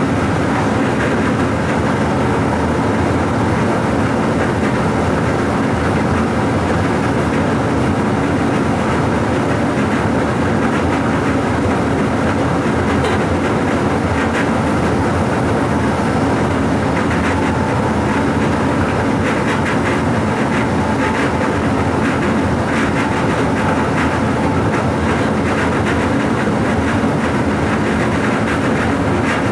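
DB Class 425 electric multiple unit running along the line, heard from inside its driver's cab: a steady running noise of wheels on rails and drive, with scattered clicks of wheels over rail joints, more of them in the second half.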